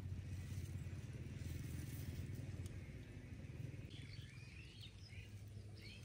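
Quiet outdoor ambience with a steady low rumble and a few short bird chirps about four to five seconds in.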